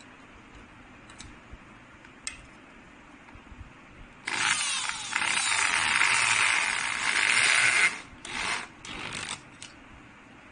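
Electric drill-driver running for about three and a half seconds while fitting a barrel bolt to a wooden door, then two short bursts as the screw is run home.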